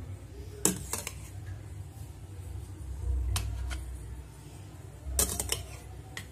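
Steel spoon clinking against a stainless steel bowl and a serving bowl while gulab jamuns are scooped out of sugar syrup: a few sharp clinks about a second in, two more in the middle, and a quick cluster near the end.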